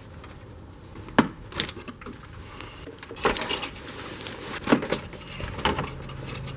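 Several sharp metallic clinks and knocks, a second or more apart, from hand tools and the battery hold-down as a car battery is unfastened and lifted out of the engine bay.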